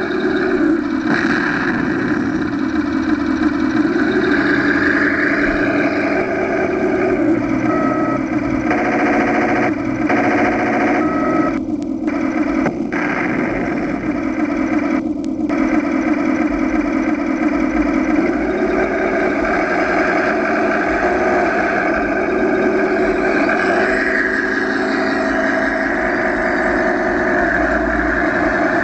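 1/16-scale Tamiya Jagdpanther radio-controlled tank running as it drives over dirt and gravel, a steady mechanical engine-and-drive sound whose pitch shifts up and down several times as it manoeuvres.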